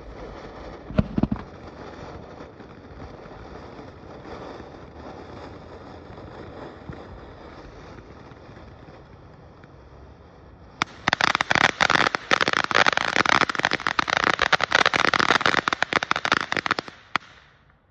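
Ground fountain firework hissing steadily as it sprays sparks, with a couple of pops about a second in. About eleven seconds in it switches suddenly to a loud, dense crackle that lasts about six seconds, then dies away.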